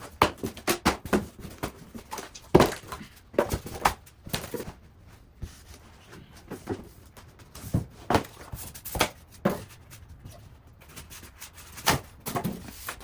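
Plastic shipping bands being cut and pulled off a boxed metal tool cart: a run of irregular sharp clicks, snaps and knocks with rustling handling noise between them.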